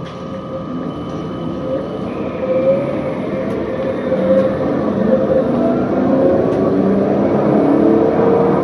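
CAF Urbos 3 light rail tram pulling away and gathering speed, heard from inside: a steady electric whine with wheel-on-rail noise that grows louder as it accelerates.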